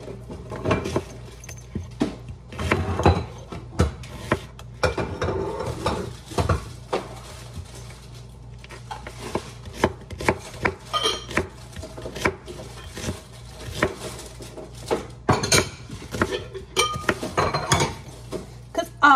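Kitchen knife chopping through an onion onto a wooden cutting board in irregular knocks, mixed with clinks of dishes and cutlery.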